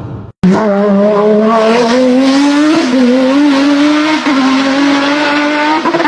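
Car engine running hard with a strong, even note whose pitch creeps slowly upward, with two brief dips along the way. It starts abruptly about half a second in and fades near the end.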